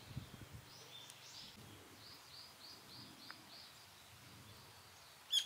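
Faint bird calls over quiet outdoor ambience: scattered chirps and a quick run of short repeated notes in the middle, with a much louder burst of bird calls starting right at the end.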